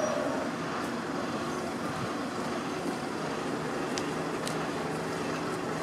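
A bus engine running steadily, with road and traffic noise, while the bus creeps slowly along a bus lane. There are two faint ticks about four seconds in.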